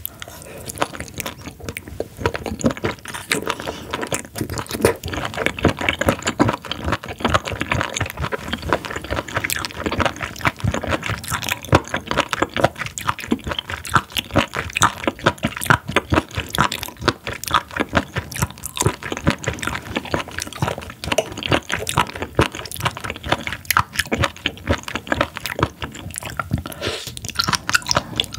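Raw spoon worm (gaebul) being chewed close to the microphone: a dense, unbroken run of rapid crunchy, rubbery bites.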